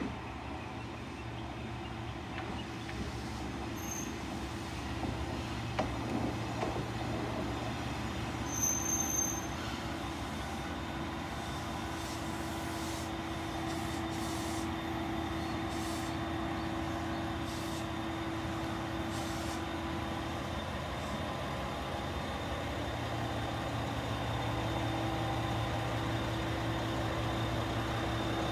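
Isumi Railway diesel railcar pulling slowly into the station and drawing to a stop, its diesel engine running steadily and getting gradually louder as it comes alongside.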